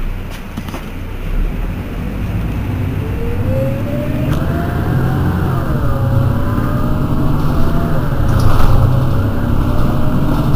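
Mercedes-Benz Citaro city bus's diesel engine pulling under load with a steady low drone. A transmission whine climbs in pitch and drops back twice as the gearbox shifts up, while the sound slowly grows louder. A few clicks come near the start.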